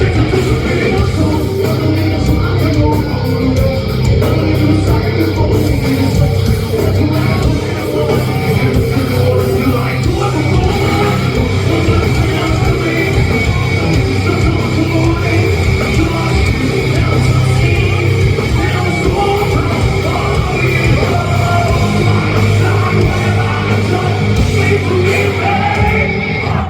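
Heavy metal band playing live and loud: distorted electric guitars, bass and drums, with shouted vocals. The low end is heavy and it sounds like an audience recording of a club show.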